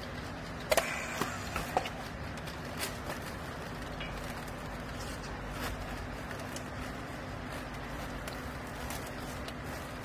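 Steady low hum of a vertical baler's hydraulic power unit running, with a few sharp clicks and knocks about a second in.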